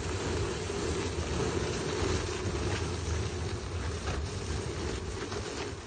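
Two stacked heavy tires dragged across asphalt on a chain, a steady rough scraping, with a few light clicks along the way.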